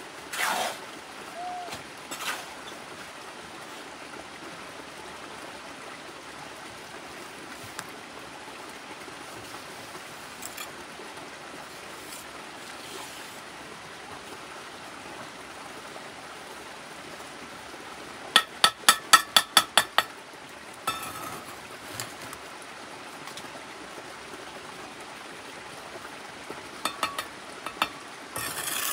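Steady rushing noise like a flowing stream. About two thirds of the way in comes a quick run of about ten sharp taps, and a few more taps follow near the end.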